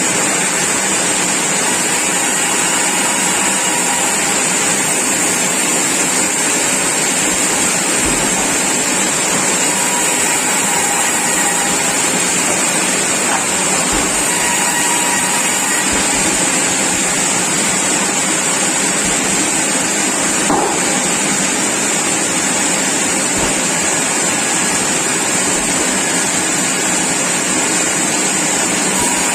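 Sawmill machinery running steadily: a continuous loud machine noise with a constant high hiss over it, unchanging throughout.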